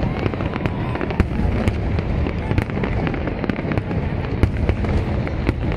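Fireworks display: aerial shells bursting in a rapid, continuous barrage, many sharp bangs a second over a steady low rumble.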